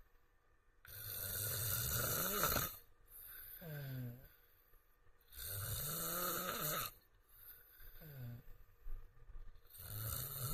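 A man snoring: three snores about four seconds apart, each a long noisy breath followed by a shorter breath whose tone falls in pitch.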